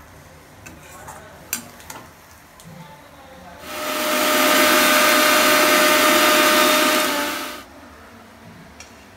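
Electric mixer grinder running for about four seconds: a loud, steady whirring with a steady whine, starting a little past the middle and cutting off near the end. Before it, a few light clinks of a steel ladle against the cooking pan.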